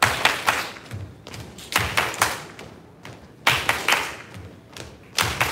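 Hand claps and feet stepping on a wooden floor during an aerobics side-to-side cha-cha step. Clusters of sharp claps and dull thuds come about once a second, with no music.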